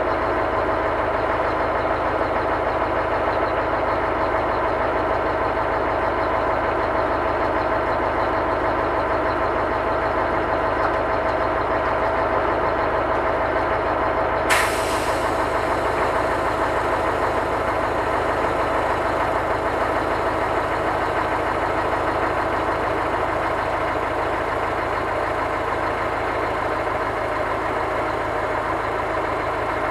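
Scania truck's diesel engine running steadily to power its loader crane, with a steady whine over it. A single sharp crack about halfway through.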